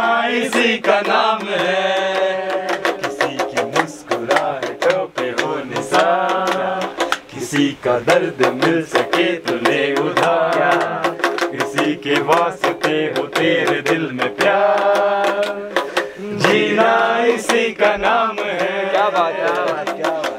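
A man singing a folk-style chant to a strummed long-necked lute with a skin-covered round body, its quick rhythmic strokes steady under the voice.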